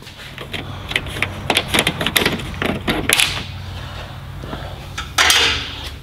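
Hand tools working on a truck luggage-door latch: irregular small metal clicks and taps as a screw is worked whose nut insert inside has broken and lets it spin, with a brief louder scrape about five seconds in.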